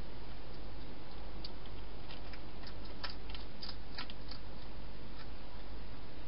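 Wild hedgehog eating from a dish, its chewing heard as a scatter of small sharp clicks, thickest in the middle, over a steady hiss.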